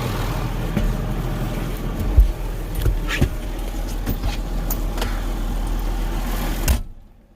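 Tractor engine running steadily, with a few knocks and rattles about two and three seconds in; the sound cuts off abruptly near the end.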